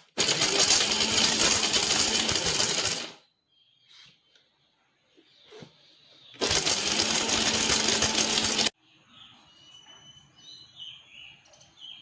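Electric mixer grinder (mixie) run in two short bursts, about three seconds and then about two, grinding hard pieces of pounded dried ginger, lesser galangal and licorice root into a coarse powder. A few light clicks and knocks come between the bursts, and birds chirp faintly near the end.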